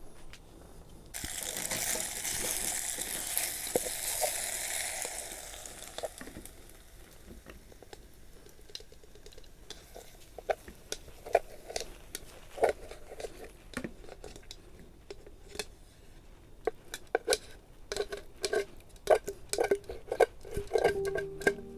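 Food going into a hot pan sizzles loudly all at once, the sizzle dying down over a few seconds. Scattered crackles and clicks follow, growing busier near the end.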